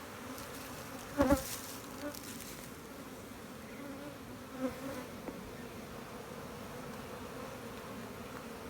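Honeybees buzzing around an open hive as a steady hum, with a single sharp knock about a second in.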